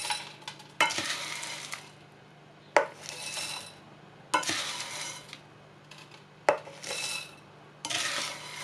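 Spoonfuls of crisp fried shallots tipped into a glass jar. Each starts with a sharp knock of the spoon against the jar, then a short dry rustle of the crispy pieces falling in, repeating about every one and a half to two seconds.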